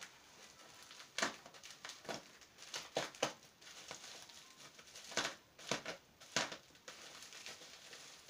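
Clear plastic wrapping crinkling and crackling in irregular handfuls as it is pulled off a small container.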